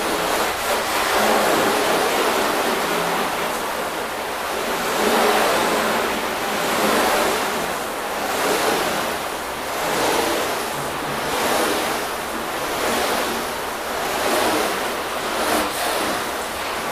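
Water spraying from a hose nozzle onto a painted panel, rinsing off car shampoo. The hiss swells and fades as the spray is swept back and forth across the panel, about every second and a half in the latter part.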